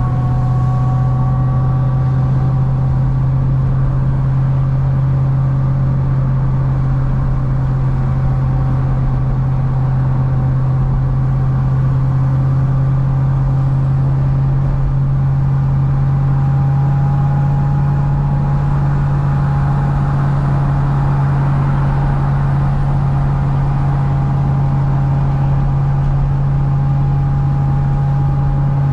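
Supercharged 6.2-litre LS9 V8 of a modified C6 Corvette ZR1 running at a steady cruise: a constant deep drone that rises slightly in pitch a little past halfway.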